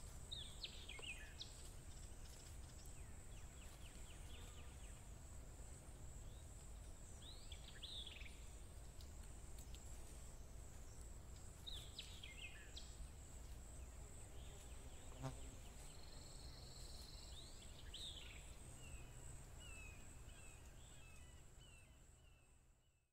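Nature ambience track: birds give short, falling chirps now and then over a steady, high-pitched insect drone and a low background rumble. It fades out at the end.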